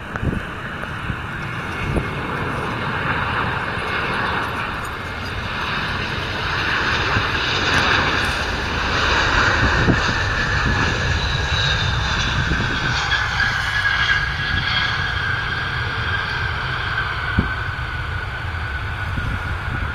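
Airbus A321-231 airliner landing, its IAE V2500 turbofans running with a steady jet noise that grows louder as it comes past. A high engine whine slides down in pitch about two-thirds of the way through as it goes by.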